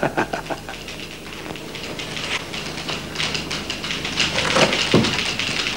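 Manual typewriters clacking: rapid key strikes that grow denser from about two seconds in, with a brief lower sound near the end.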